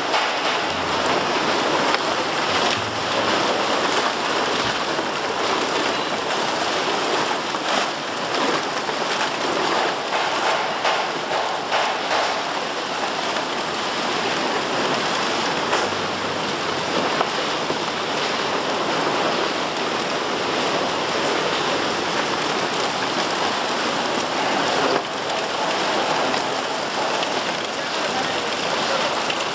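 Steady crackling and rattling of loose plastic bottles tumbling in a recycling line's feed hopper, mixed with machinery running.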